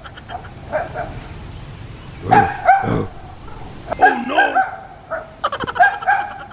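Dog barking several times in short bursts, loudest as a pair of barks about two and a half seconds in.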